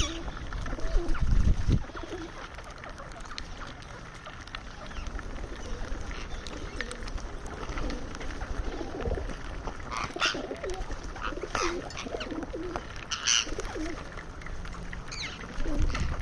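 Indian ringneck parrot calling while it feeds, with lower murmuring calls and several short, sharp high calls in the second half. A low rumble sounds about a second in.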